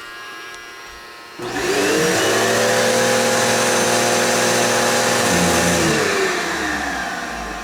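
Bagless vacuum cleaner switched on about a second and a half in: its motor runs up quickly and then runs steadily with a whining hum over a rushing hiss of air. Near the end it is switched off and the motor winds down, falling in pitch as it fades.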